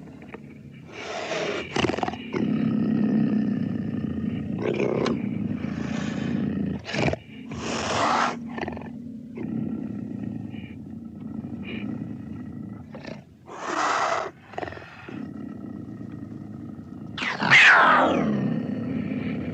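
Edited big-cat growls and roars standing in for a jaguar: a low rumbling growl runs under a string of short snarling calls, and a loud roar falling steeply in pitch comes near the end.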